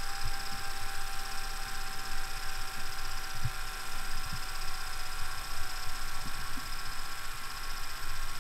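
Panasonic NV-HD635 VHS video recorder's tape transport and head drum running, a steady mechanical whir with a high whine and a few faint low taps.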